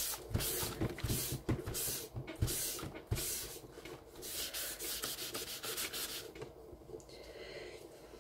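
Dry soft pastel being rubbed and blended into drawing paper by hand, a run of rasping back-and-forth strokes. The strokes stop about two-thirds of the way through, leaving a softer rustle.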